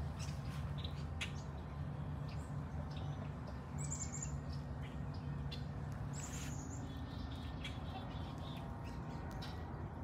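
Birds chirping: short high chirps a few times over a steady low rumble, with scattered light clicks.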